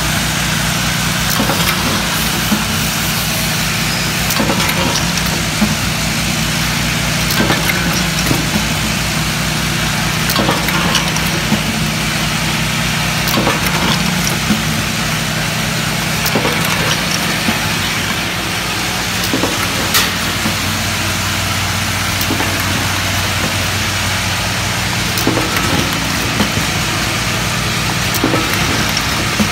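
Automatic cosmetics production-line machinery running: a steady mechanical hum with many short clicks and clacks from the moving parts.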